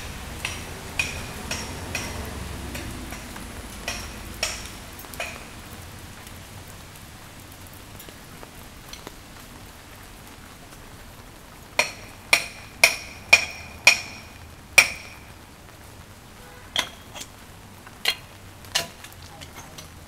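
Steady rain, with sharp, ringing taps of large drops dripping: scattered ones early, then a quick run of about six, roughly two a second, in the middle, and a few more near the end.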